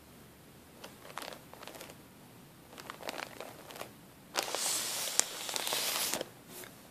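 Hand crinkling and rubbing a plastic bag filled with cotton balls: scattered soft crinkles at first, then a louder continuous crinkling for about a second and a half past the middle.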